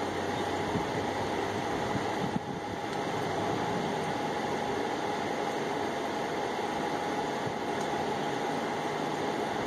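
Steady mechanical hum with a faint constant whine.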